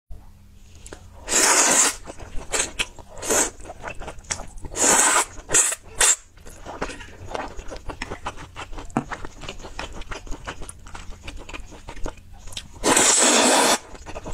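Close-miked noodle slurping and chewing: several long, loud slurps of about a second each, with small wet chewing clicks in between.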